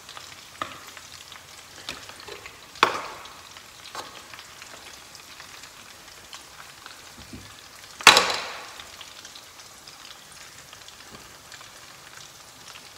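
Rolled potato taquitos frying in oil in a skillet: a steady sizzle with scattered small pops, and two louder sharp bursts about three and eight seconds in.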